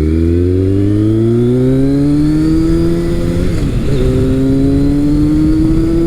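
2002 Kawasaki ZRX1200R's inline-four engine accelerating hard through an ART Pro Series II slip-on exhaust, the pitch rising steadily. About three and a half seconds in it dips briefly at an upshift, then rises again in the next gear.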